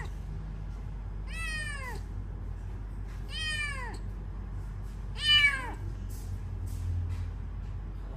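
A tabby kitten meowing three times, about two seconds apart, each meow falling in pitch at its end and the last one the loudest.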